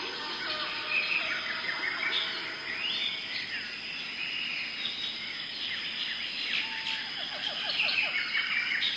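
Several birds singing and chirping over a steady, high insect drone. About seven seconds in, a quick run of about five lower notes.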